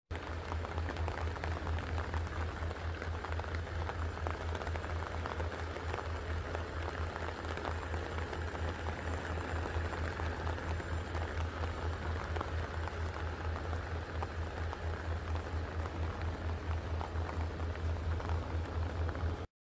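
Low, steady drone with a fast, even pulse, heard from inside a moving vehicle, under an even hiss like heavy rain.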